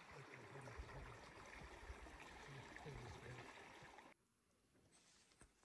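Near silence: faint outdoor background hiss with faint distant voices, cutting off abruptly to almost total silence about four seconds in.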